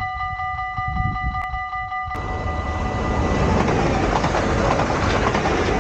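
Dutch level-crossing warning bell ringing rapidly. About two seconds in, an electric passenger train passes through the crossing with a sudden, growing rush of wheel and rail noise, the bell still ringing underneath.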